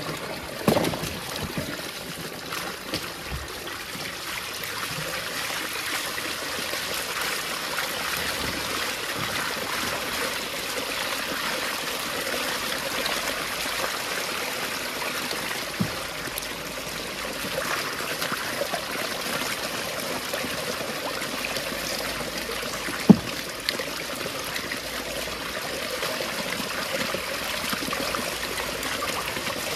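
Running water pouring into a plastic tub and spilling over its edge, splashing as cassava roots are washed by hand in it. A few short knocks sound over the water, the sharpest about 23 seconds in.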